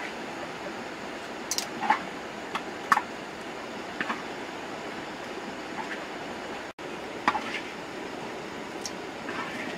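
Metal spatula scraping and knocking against a large wok and a steel bowl as cooked fish is scooped out: a handful of short sharp clicks and scrapes over a steady hiss.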